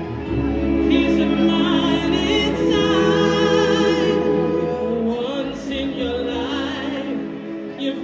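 Live band and orchestra playing a soul-pop song, with singers holding long notes with vibrato over sustained chords.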